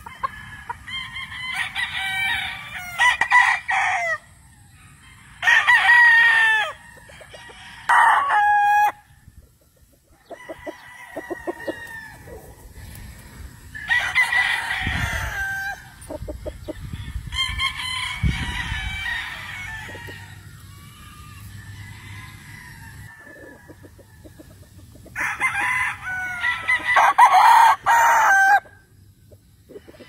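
Gamefowl roosters crowing and clucking in repeated bouts of a second or more, with quieter pauses between them.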